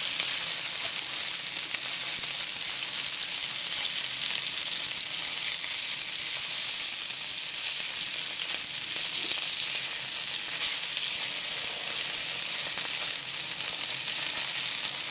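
Stuffed mackerels shallow-frying in hot oil in a pan: a steady, even sizzle, as the fish are turned over with a spatula.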